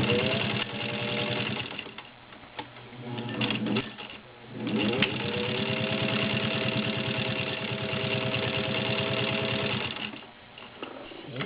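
Vintage Singer 15-91 straight-stitch sewing machine, driven directly by its potted motor, stitching in three runs: a short one at the start, a brief one around four seconds in, and a longer steady run from about five to ten seconds in. Each run begins with a motor whine rising in pitch as the machine speeds up, over a rapid, even clatter of needle strokes. It is sewing through layered leather.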